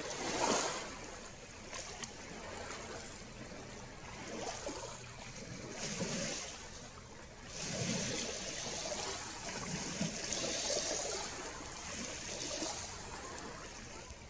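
Small waves washing in on a Lake Ontario shore with a breath of wind, a steady hiss that swells and eases every few seconds.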